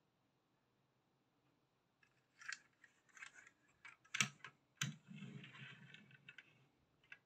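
Majorette toy bus handled and set down on a desk: a string of small clicks, two sharper knocks as it touches down, then a short scraping rumble as it is slid across the surface into place.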